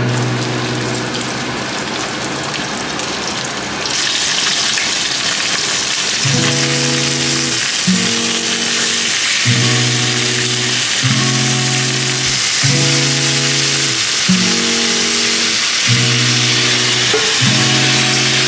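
Chicken pieces sizzling as they fry in olive oil in an enamelled cast-iron pot, the sizzle growing louder about four seconds in. Background music with sustained notes plays over it.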